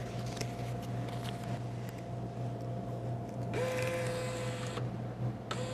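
A small motor in a vending machine whirs for about a second a little past the middle, and a second short whir starts near the end. A steady electrical hum runs underneath, with a few faint clicks.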